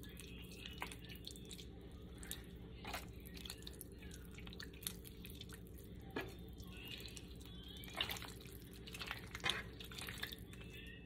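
Bare hands rubbing butter into raw chicken breasts: irregular soft wet squelches and smacks of the greasy meat being squeezed and turned, a few louder slaps near the middle and end.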